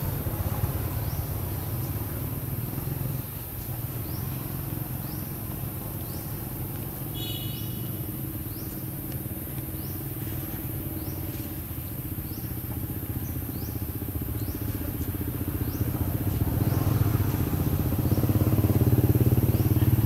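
An engine running steadily, growing louder in the last few seconds, with short high rising chirps repeating about once a second.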